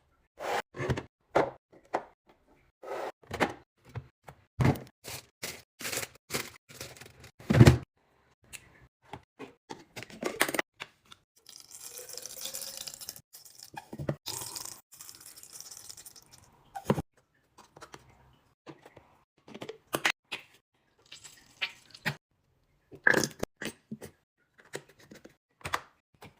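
Restocking a fridge: a run of short knocks, clicks and clacks as containers, bottles and jars are handled, set down and opened or closed, the loudest knock about seven and a half seconds in. For a few seconds in the middle a steady hissing noise runs under them.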